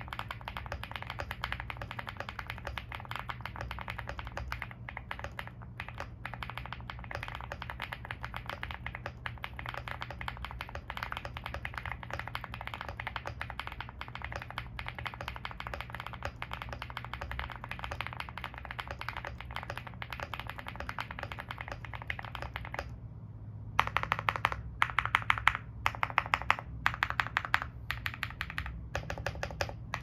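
Fast, continuous typing on a Leobog Hi75 mechanical keyboard with stock MMD Vivian switches, Cherry-profile PBT keycaps and full foam, giving a thocky clack. About seven seconds before the end, the steady typing gives way to louder, separate clusters of key presses, as the stabilized larger keys are tested.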